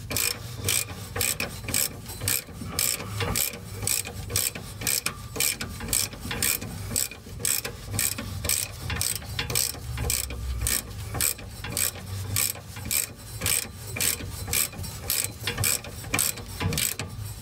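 Hand socket ratchet clicking steadily, about two to three clicks a second, as it tightens the bolt of a VW Karmann Ghia's steering stabilizer (steering dampener).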